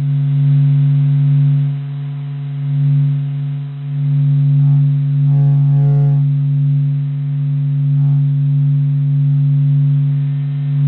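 NASA's sonification of the Sun made from SOHO spacecraft data: a deep, steady hum with fainter steady tones above it, slowly swelling and ebbing in loudness.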